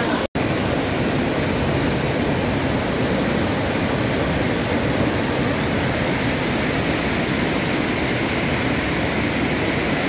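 A mountain stream's whitewater rushing over boulders: a steady, unbroken rush of water, with a split-second dropout just after the start.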